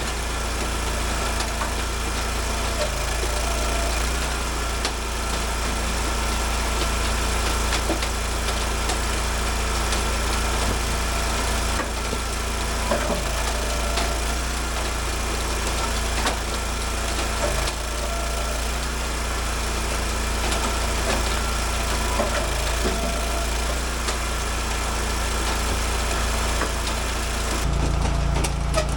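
Gas engine of an Eastonmade AXIS hydraulic log splitter running steadily, with a few scattered knocks.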